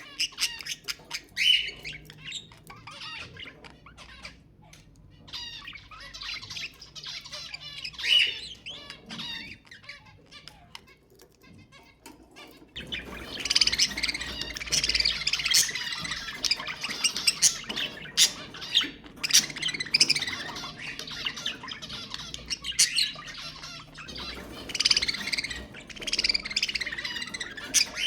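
Budgerigars chattering and warbling, with sharp squawks mixed in. The chatter is sparse at first and turns busier and louder from about halfway.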